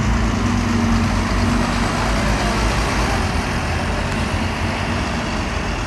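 Double-decker bus driving past close by and pulling away, its steady engine hum strongest in the first two seconds, over street traffic noise.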